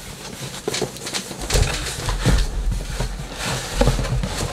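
Cardboard and clear plastic wrap rustling and scraping as a plastic-wrapped box is pulled out of a cardboard shipping carton, with irregular knocks and bumps.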